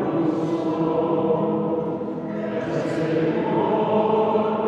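Choir singing a liturgical chant in long, held notes.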